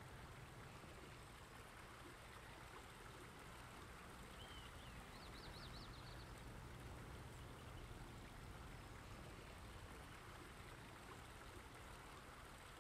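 Near silence: a faint steady hiss with a low hum, and a brief faint high chirp about five seconds in.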